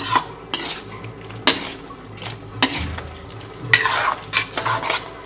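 Steel spatula stirring and scraping through idli manchurian in a metal kadai, in irregular strokes about a second apart with a quicker cluster near the end, over the faint sizzle of the thickened sauce cooking.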